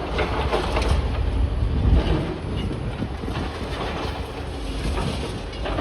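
Heavy demolition machinery rumbling, with repeated knocks and clatters of rubble being moved.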